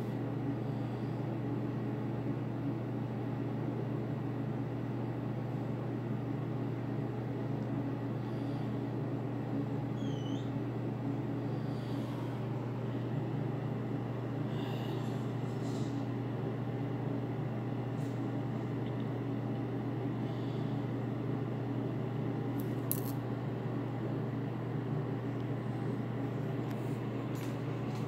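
Steady low hum with room noise and a few faint clicks.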